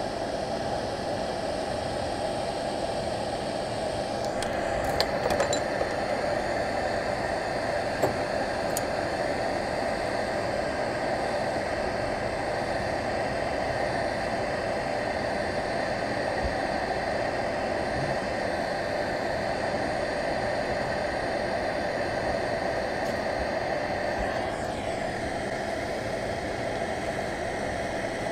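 Quick 861DW hot air rework station blowing steadily while it melts the solder under a surface-mount chip. A higher hiss joins about four seconds in and drops away near the end with a short falling tone. A few light clicks come around five and eight seconds.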